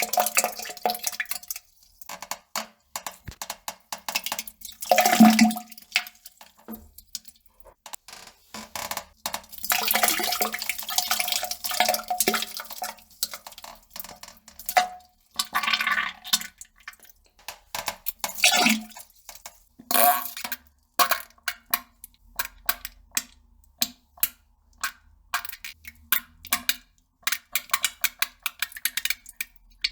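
Wet fart and defecation sounds: a string of crackling, squelching clicks broken by several longer sputters.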